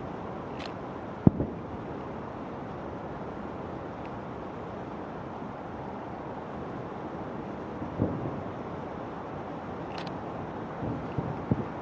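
Fireworks shells bursting over a steady background hiss: a sharp boom about a second in, another near eight seconds, and two more in quick succession near the end.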